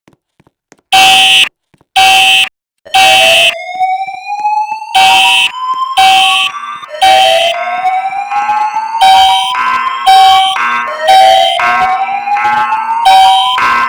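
Fire alarm horns sounding the temporal-three evacuation signal: three short blasts about a second apart, then a pause, repeating. From about three seconds in, a second alarm tone joins, a rising whoop that sweeps upward roughly every four seconds over the horn blasts.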